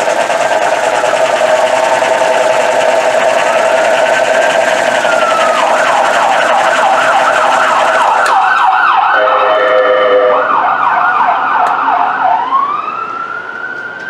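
Emergency vehicle siren sounding a slow rising-and-falling wail, switching to a fast yelp about six seconds in, then back to the wail near the end.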